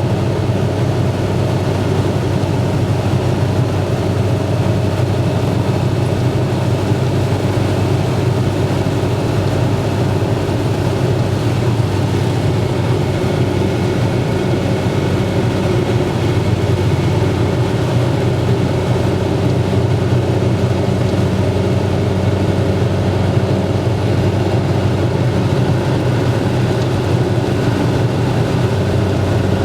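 Steady cabin noise of a car cruising at about 130 km/h on a wet road in heavy rain: a constant low drone from the engine and tyres, with an even hiss of water and spray over it.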